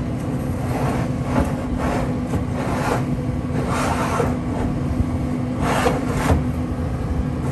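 Metal deep-dish pizza pan and smoker grates scraping and knocking against each other as the pan is slid into the cook chamber, in several short rasping scrapes. A steady low hum runs underneath.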